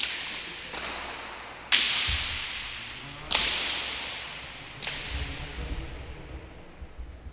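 Hand-pelota ball cracking against hands and the fronton's walls: five sharp whip-like strikes about a second or so apart, each ringing out in a long echo through the hall.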